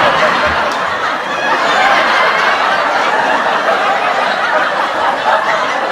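Sitcom studio audience laughing together, a dense, steady crowd laugh.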